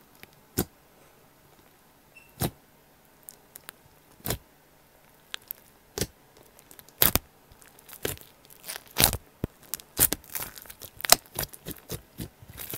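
Slime being squeezed and worked by hand, letting off sharp pops and clicks as air pockets burst. They are sparse at first, a single pop every couple of seconds, and come faster and closer together in the second half.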